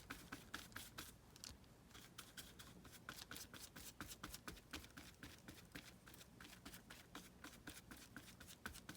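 Faint, quick run of small taps and rustles, several a second, as hands press and smooth tea-bag paper onto a glued page.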